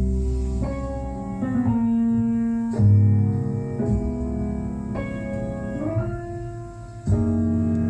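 Recorded music played through a Bell Carillon 6060 tube amplifier and its loudspeakers: an instrumental passage of sustained chords over a deep bass line, the notes changing about once a second.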